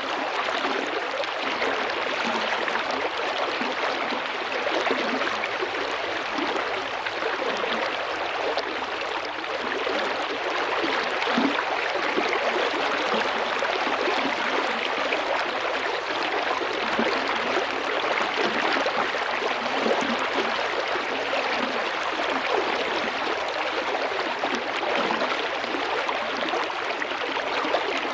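Small river flowing and babbling over stones: a steady, even rush of water flecked with small splashes and gurgles.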